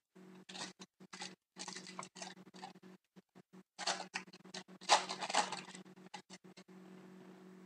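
Foil wrapper of a hockey card pack crinkling and tearing as it is pulled open by hand, in short irregular bursts that are loudest about five seconds in and stop shortly before the end.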